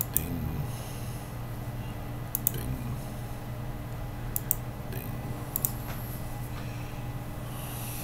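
Sharp clicks at a computer, several in quick pairs, over a steady low hum.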